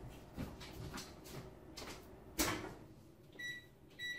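Light clicks and a knock of hand movements, then a short electronic beep about three and a half seconds in and a quick run of beeps starting at the very end: a kitchen stove's keypad timer being set.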